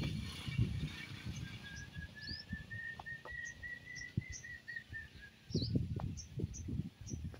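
Small birds chirping with short high notes, and a run of quick evenly spaced notes for a few seconds in the middle. Irregular low rumbles of wind on the microphone come and go, strongest at the start and again near the end.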